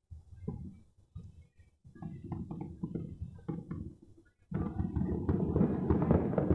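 Distant New Year's Eve firecrackers and fireworks popping across the city. The sound is scattered and muffled at first, then from about four and a half seconds in it becomes a dense, continuous crackle of many small bangs.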